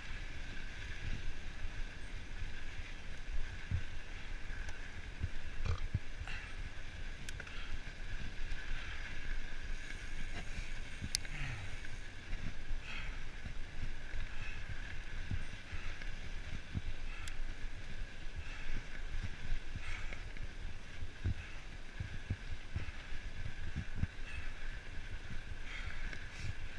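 Mountain bike rolling along a dirt trail, heard through a handlebar-mounted camera: a steady rush of tyre and wind noise with frequent irregular low knocks as the bike jolts over bumps.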